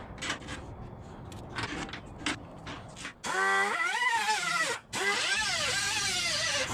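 A few light clicks and knocks, then about three seconds in a handheld power tool starts cutting sheet metal: a loud, rough whine whose pitch sags and climbs as it bites. It stops briefly and starts again.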